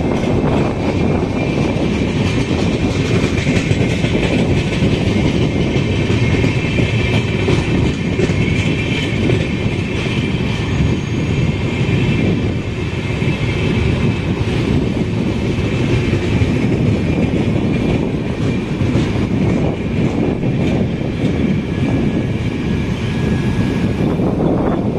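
Long rake of LHB passenger coaches passing close by at speed: a steady rumble of wheels on rail with a clickety-clack as the wheels cross rail joints, and a high whine over it.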